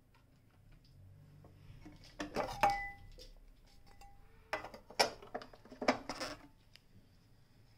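Clattering and metallic clinks as the hinged accessory-compartment lid in a Singer 201K's wooden base is handled and the metal parts inside are moved. There are two bursts of knocks, the first with a short ringing clink.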